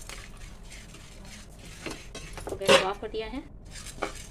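Steel spoon stirring and scraping roasted wheat grains and lumps of jaggery around a nonstick pan, the grains rattling with each stroke. A short voice-like sound, the loudest moment, comes a little under three seconds in.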